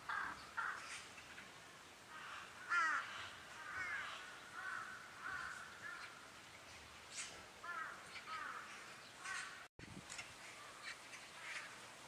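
Magpies calling: a string of short, harsh calls repeating throughout.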